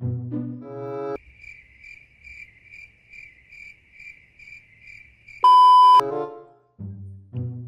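Cricket-chirping sound effect, an even pulsed chirp about twice a second for roughly four seconds, the stock 'awkward silence' gag. It cuts straight into a loud, steady, half-second censor-style beep, with short bits of cartoonish music before and after.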